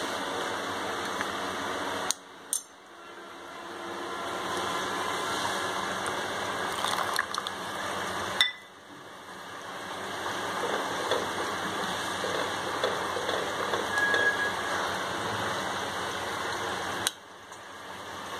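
Liquid being stirred in cookware: a spoon swirling cornflour slurry in a steel bowl, then a spatula working thickening chilli sauce in a pan on a gas stove, over a steady hiss. The sound breaks off briefly three times, about two, eight and seventeen seconds in.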